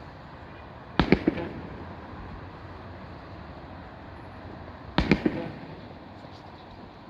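Fireworks shells bursting in two volleys about four seconds apart, each a quick cluster of about three bangs that trails off briefly.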